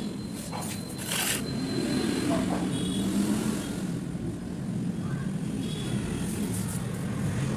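Road traffic: a steady low rumble of passing vehicles, with a few brief higher sounds over it.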